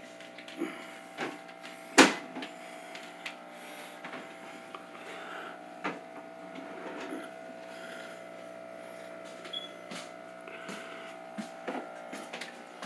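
Steady hum of a running aquarium filter, with scattered knocks and rubs; the loudest knock comes about two seconds in.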